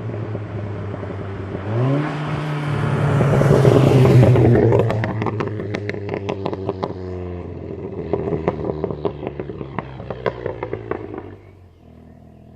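VW Golf 7 GTI Clubsport's turbocharged four-cylinder, breathing through a custom downpipe and non-resonated midpipe, revs up about two seconds in and pulls hard. On lift-off the exhaust crackles and pops in a rapid string of sharp cracks for several seconds as the revs fall: overrun fuel cut-off. The engine note fades down near the end.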